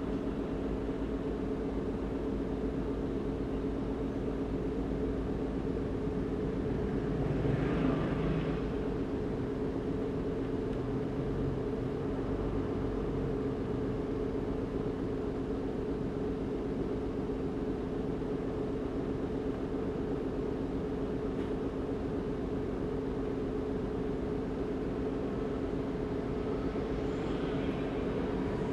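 Steady hum of a car idling in stopped traffic, heard from inside the cabin: even noise carrying two steady tones. About eight seconds in, a brief louder swell of another vehicle's engine comes and goes, and a fainter one rises near the end.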